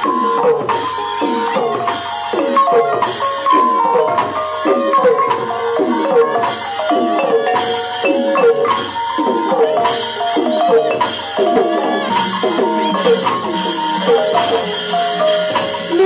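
Burmese hsaing waing ensemble music accompanying a nat pwe dance: fast runs of struck, pitched notes and tuned drum strokes that slide down in pitch, over a steady beat of high cymbal clashes.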